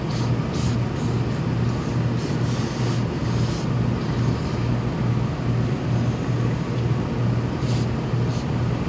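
Gravity-feed steam iron pressing a suit jacket, giving several short hisses of steam, over a steady low machine hum.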